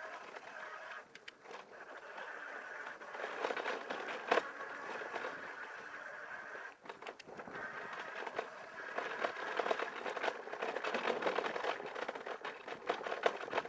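Electric bike's tyres rolling over a rough forest track: a steady crackling, scraping noise full of small clicks and rattles, getting busier about two-thirds of the way through.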